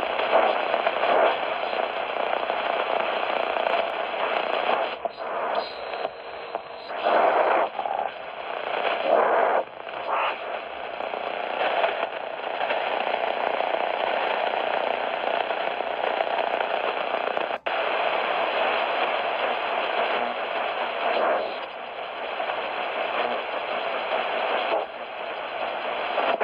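Shortwave radio receiver putting out band noise and static hiss between stations while being tuned across the bands, its sound shifting every second or so, with a brief dropout about two-thirds of the way through.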